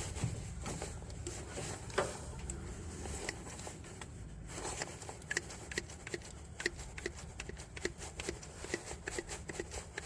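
Handheld hydraulic crimping tool being pumped to crimp a connector onto a jumper cable: faint, irregular clicks and ticks, with a sharper click about two seconds in and a quicker run of clicks in the second half.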